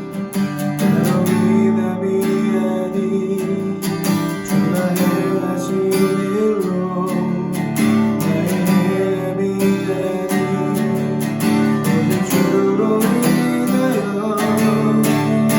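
Acoustic guitar strummed steadily, playing a worship-song accompaniment as an instrumental passage between sung lines.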